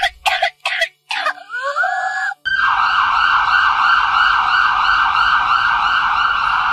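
A few short coughs, then about two and a half seconds in an ambulance siren starts and keeps up a steady, fast warble.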